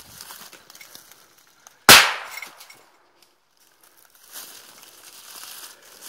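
A single loud gunshot about two seconds in, with a short fading tail. Footsteps crunching through dry leaves and brush before it and again in the last seconds.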